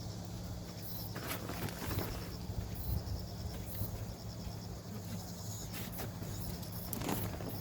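Insects chirping steadily over a low steady hum, with a few short knocks or scrapes, the first about a second in and another near the end.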